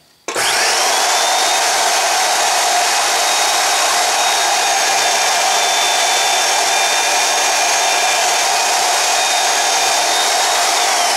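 Mini vertical metal-cutting band saw switched on and running steadily, cutting through round bar stock clamped in a vise. Its high motor whine climbs as it comes up to speed and sags in pitch near the end.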